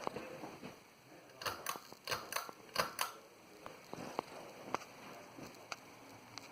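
Hunter Low Profile ceiling fan running with a dry clicking, about two clicks a second, over a faint steady hum. A run of louder clicks comes about one and a half to three seconds in.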